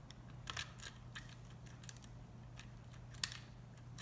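Faint plastic clicks and creaks as the casing of a Ridgid 18-volt battery pack is squeezed at the sides and wiggled by hand to separate it, with one sharper click about three seconds in. A steady low hum runs underneath.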